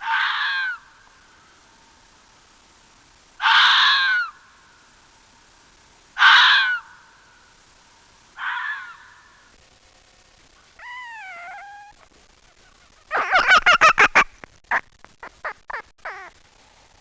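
Fox calls: four harsh, raspy screams a few seconds apart, then a wavering, whining call, and near the end a fast stuttering run of short sharp yaps.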